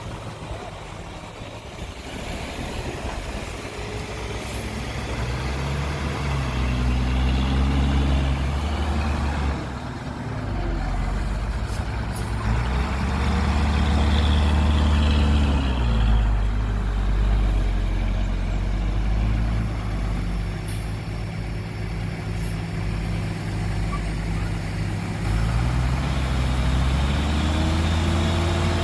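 Heavy diesel engine of earth-moving machinery working, its revs climbing and easing off several times. A few short sharp clanks or hisses come through on top.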